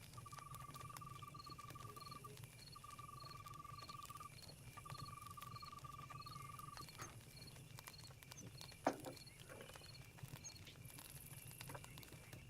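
Faint night-forest chorus of crickets and other insects chirping steadily, with a quick high chirp repeating about three times a second. Three trilled calls of about two seconds each come one after another in the first seven seconds. A single sharp crack about nine seconds in is the loudest sound, likely a campfire pop.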